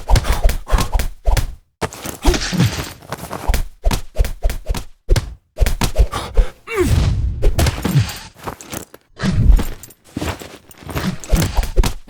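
Fight-scene sound effects: a rapid run of punches and body hits landing, mixed with men grunting and groaning from the effort and the blows.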